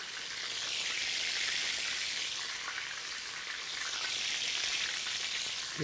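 Breaded oysters deep-frying in hot vegetable oil in a steel plow-disc discada: a steady sizzle, the oysters fried golden brown.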